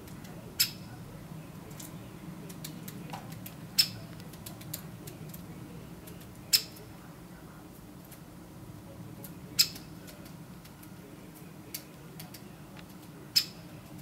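Great spotted woodpecker giving a single sharp, high 'kik' call about every three seconds, five in all, with fainter ticks between them.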